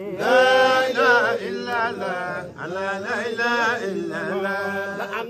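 A man's solo voice chanting devotional verse: a melodic recitation with long held, wavering notes.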